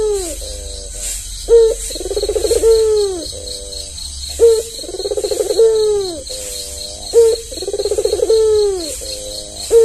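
Albino puter (ringneck dove) cooing in a repeated pattern, about every three seconds. Each coo is a short clipped note, then a rolling trilled coo that falls away at the end. Three full coos are heard, and a fourth begins at the very end.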